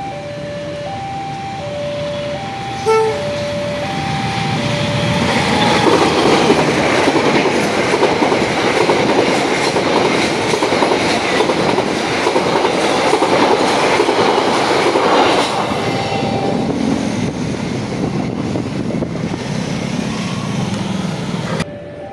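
Level-crossing warning bell ringing in an alternating two-note pattern, a short train horn blast about three seconds in, then a train passing over the crossing, its wheel and running noise loud for about fifteen seconds before cutting off abruptly near the end.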